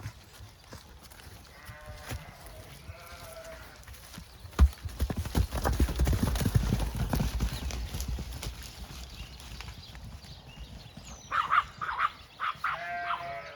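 Farm animals calling in short pitched cries, faint at first and louder near the end. A sharp knock comes about four and a half seconds in, followed by a few seconds of low clattering and rumbling, the loudest part.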